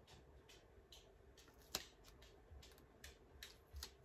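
Near silence with a few faint, scattered clicks and rustles of paper and craft supplies being handled, the clearest a little under two seconds in.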